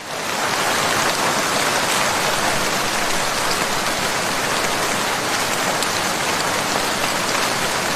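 Steady, even hiss of falling water, like rain.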